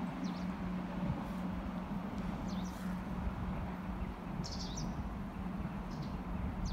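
Small birds chirping in short high calls, about five times, loudest a little after halfway, over a steady low hum and rumble.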